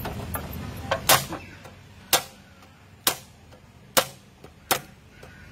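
MEKATA F30 electric (solenoid) brad nailer firing F30 brads through zinc-coated steel sheet into wood. Each shot is a sharp snap, about six in a row roughly a second apart, and the one about a second in is the loudest.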